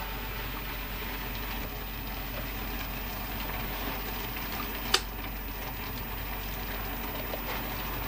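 A pan of prawns and cream simmering and sizzling on a gas hob, the cream just added, with a steady bubbling hiss. One sharp click about five seconds in.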